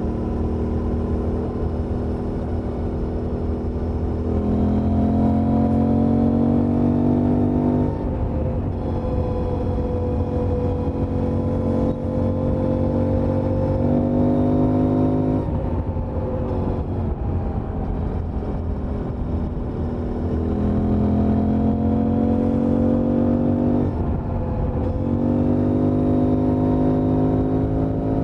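Suzuki V-Strom 800DE's parallel-twin engine on its stock exhaust, accelerating hard. Its pitch climbs through each gear and drops back at each upshift, several times over, with wind noise.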